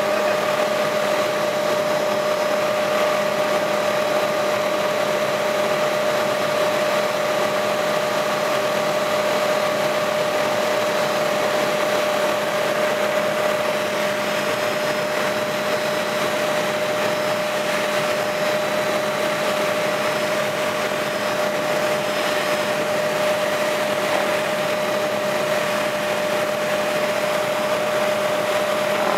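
Helicopter in flight heard from inside the cabin: a steady, unbroken drone of engine and rotor noise with a constant whine over it.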